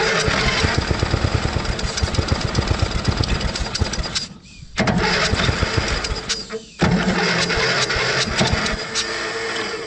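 Ride-on mower engine being cranked by its electric starter in three bursts with short breaks between them, without catching. The engine had been full of water and its carburettor fouled, and the starter is running off a jump-starter booster that is going flat.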